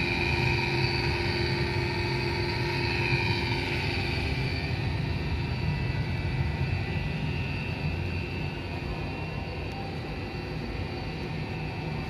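Sinmag SM-705G gas convection oven running with its gas burner lit: a steady mechanical noise from the burner blower and convection fan, with faint thin whining tones over it in the first few seconds.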